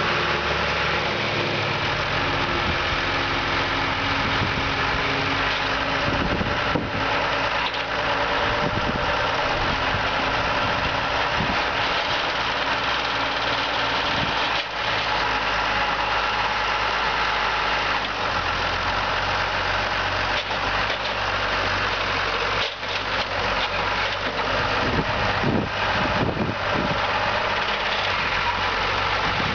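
John Deere 3255 tractor's six-cylinder turbo diesel engine idling steadily, its low hum shifting slightly in pitch a couple of times.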